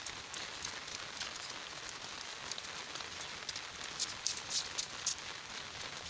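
Steady rain falling, an even hiss with many sharp drop ticks, a cluster of louder ones about four to five seconds in.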